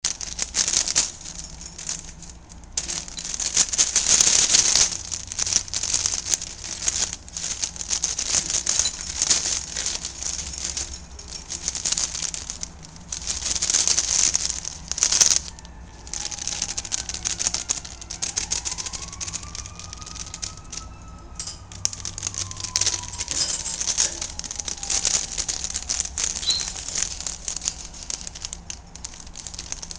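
Plastic bag crinkling and crackling in irregular bursts as a Quaker parrot attacks it, with two louder flurries. A faint single tone slowly rises and then falls for several seconds past the middle.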